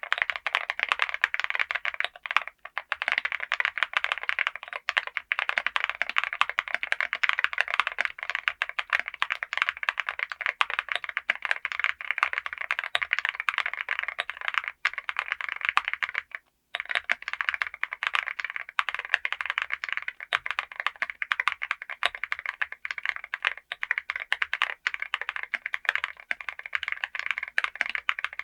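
Fast, continuous typing on a TKD Cycle7 gasket-mounted aluminium mechanical keyboard, with a rapid stream of key clicks. There are two brief pauses, about two and a half seconds in and about sixteen seconds in.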